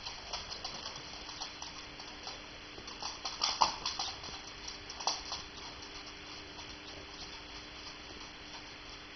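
Small terrier's claws clicking on a hardwood floor as it trots about, in scattered, uneven taps with a busier run about three to five seconds in.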